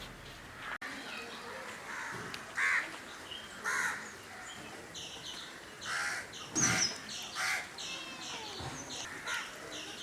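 Crows cawing a few times in short calls, with small birds chirping high and quick in the background.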